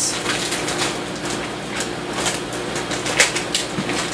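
Thin plastic bag crinkling and rustling as it is handled, a run of small irregular crackles.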